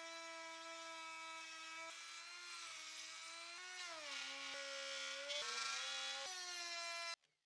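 Wood router with a 12 mm straight bit running as it cuts a groove along a board edge, a steady high whine. Its pitch sags briefly about four seconds in and then climbs again, and it cuts off suddenly near the end.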